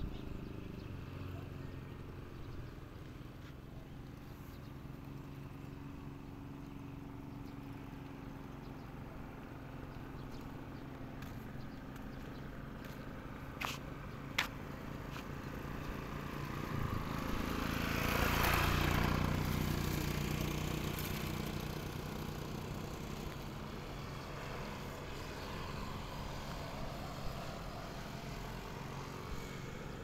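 Steady engine hum of motor traffic, with one vehicle passing: the sound swells to its loudest a little past halfway and fades again. Two sharp clicks come shortly before halfway.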